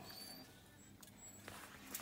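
Faint small clicks and light scraping of a steel feeler gauge and hand tools on the valve rocker arm of a small four-stroke ATV engine, during a check of the valve clearance.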